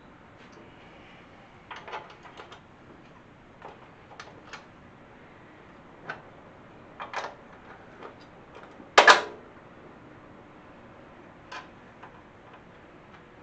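Scattered light metal clicks and clinks as bolts are handled and fitted into the sheet-metal steering tower of a garden tractor, with a louder short clatter about nine seconds in.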